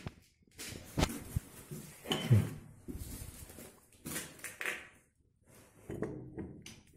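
Metal parts being handled: a few sharp knocks and clatter about one and two seconds in, with scraping and rustling in between.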